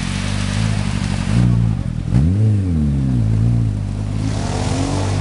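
Lotus Super 7 with a turbocharged Suzuki Hayabusa 1300 inline-four motorcycle engine pulling away. The engine revs briefly, then rises and falls in pitch in a bigger rev just after two seconds, runs steadier, and climbs again near the end as the car drives off.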